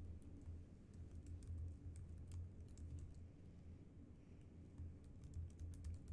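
Typing on a computer keyboard: faint, irregular keystroke clicks over a steady low hum.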